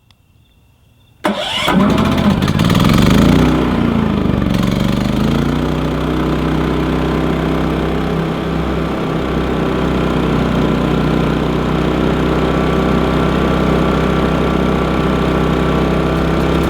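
Champion 3400-watt inverter generator's engine starting about a second in, rising in pitch briefly and then settling into steady running.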